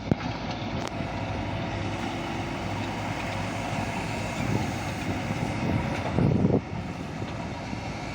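JCB 3DX backhoe loader's diesel engine running steadily under work, with a knock right at the start and two louder surges, about four and a half and six seconds in.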